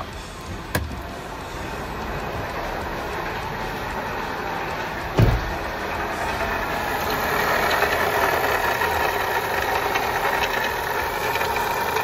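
Volkswagen Beetle engine idling with a rattle from its worn water pump, growing louder about halfway through as it is heard closer to the engine bay. A single thump about five seconds in.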